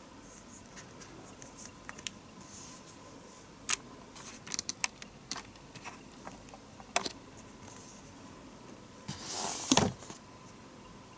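Product packaging being handled: scattered light clicks and taps, then a louder scraping rustle about nine seconds in.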